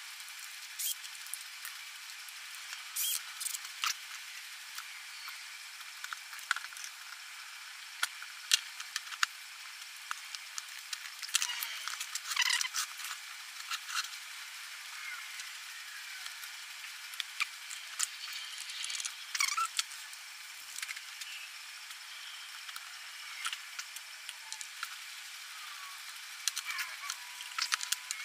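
Workbench handling sounds played back at high speed: a scatter of quick, high-pitched clicks and knocks from wooden blocks and tools being moved, with short chirping squeaks over a steady hiss.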